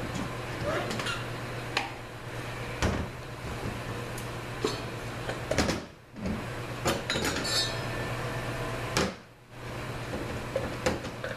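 Metal knocks, clinks and scrapes as a 5L40E automatic transmission's clutch drum assembly on its input shaft is drawn out of the case and set on the bench, about a dozen separate hits. A steady low hum runs underneath.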